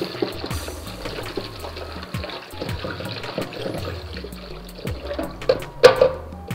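Tap water running into a plastic bowl in a stainless steel sink while hands wash food in it, with a sharp knock near the end as the plastic bowl is handled.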